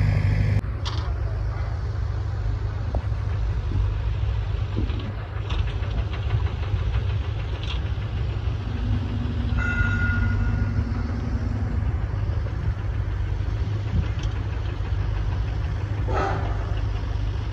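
Steady low rumble of an engine running, with a short steady tone near the middle.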